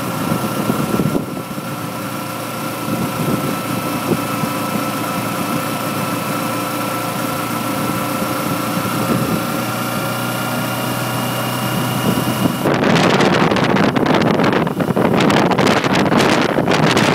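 Kawasaki Ninja 250R's parallel-twin engine running at a nearly steady pitch while riding. About thirteen seconds in, wind rushing over the microphone suddenly comes in loud and covers it.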